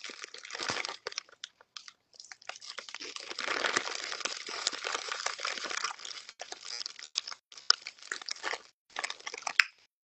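Crinkling of a chip bag as a hand rummages inside it, mixed with the crunch of chips being chewed. Irregular crackles in short runs that start and stop.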